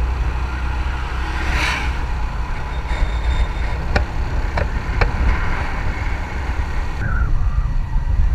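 Motorcycle riding at speed: wind rumbling heavily on the microphone over the running engine, with a brief rush of hiss about two seconds in and a few light clicks around the middle.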